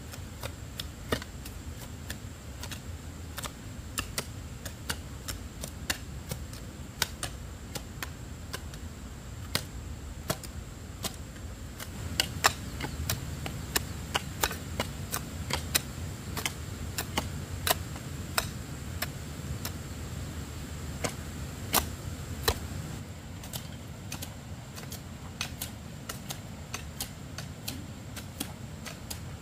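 Irregular sharp taps or clicks, one to three a second, over a steady low rumble.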